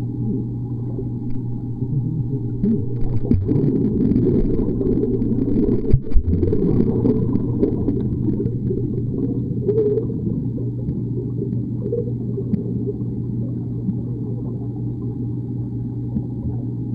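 Muffled underwater sound in a swimming pool: a steady low hum under the churning water of swimmers diving and kicking near the microphone, louder from about three to ten seconds in, with one sharp thump about six seconds in.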